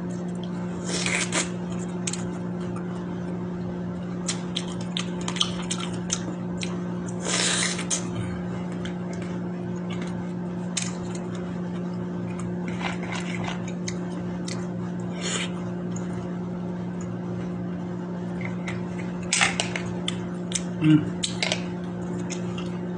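Mouth sounds of eating mango slices: chewing and smacking, with a fork and spoon clicking against the bowl now and then. A steady low hum runs underneath.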